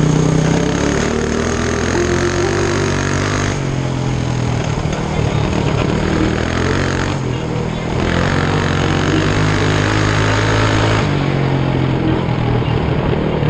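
Mini bike's small engine running while riding, with wind rushing over the microphone. The engine and wind ease off about three and a half seconds in and pick up again about eight seconds in.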